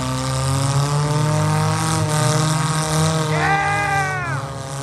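Several demolition-derby car engines running together in a steady drone. About three and a half seconds in, one engine revs up and drops back.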